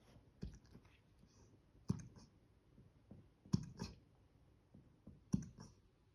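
A dog hiccupping: four short, sharp hics, about one and a half to two seconds apart.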